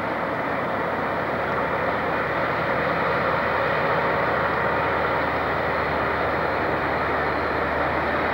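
Diesel freight locomotive approaching at the head of a train of hopper wagons: a steady engine drone and rolling-stock rumble that grow slightly louder over the first few seconds.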